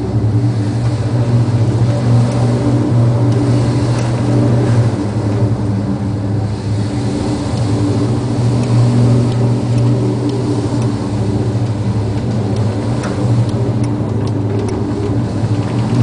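Steady low drone of a ship's engines and machinery heard on board, over an even hiss of storm wind and sea.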